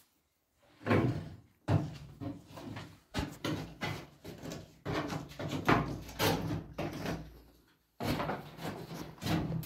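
A stick poking and scraping inside a sheet-metal barrel stove's firebox, clanking against the thin metal body and its open fire door in a run of irregular short knocks and scrapes.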